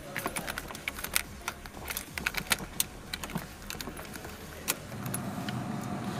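Irregular clicks and light rattles of hands working at a car's dashboard. About five seconds in, a steady hum starts as the Tata Indigo's ignition comes on and the instrument-cluster warning lights light up.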